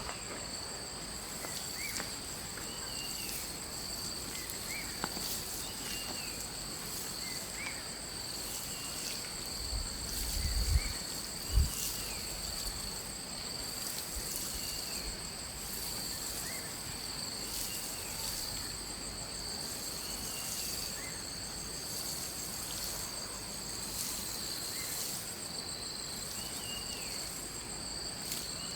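Insects trilling steadily at a high pitch in a rural outdoor soundscape, with short faint chirps every second or two. Two brief low bumps come about ten and twelve seconds in.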